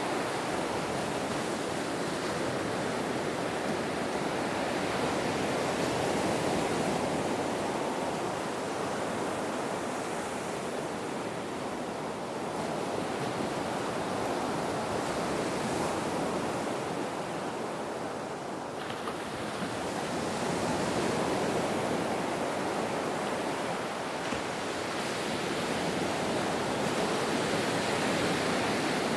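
Ocean waves washing ashore as a continuous rush of surf that swells and eases slowly, with a lull a little past the middle before it builds again.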